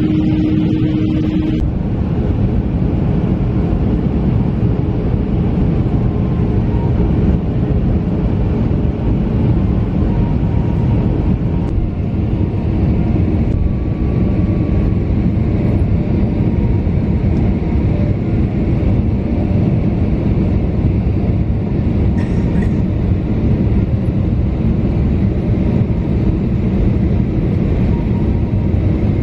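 Steady roar of an Airbus A320's jet engines and rushing airflow heard from inside the passenger cabin during the descent toward landing, a deep even rumble with no breaks.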